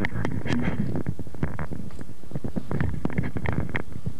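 Irregular rustling and crackling very close to the microphone, with clusters of small clicks over a low rumble: handling or movement right at the mic.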